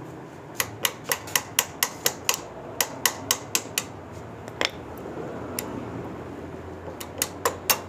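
Light hammer taps on metal, knocking the clutch arm out of a CD70-type motorcycle engine's clutch cover. There is a run of about four taps a second, then a few scattered taps, then a quick group of taps near the end.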